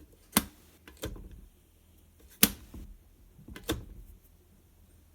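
Four sharp clicks or knocks about a second apart, the first and third the loudest.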